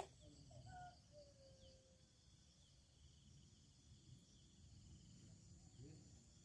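Near silence, with faint steady insect chirring in the background and a few faint short notes about a second in.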